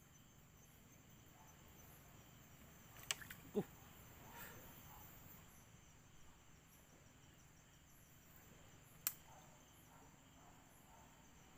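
Faint, steady chirping of night insects. A few short sharp clicks and knocks break through: a quick cluster about three seconds in and a single one about nine seconds in.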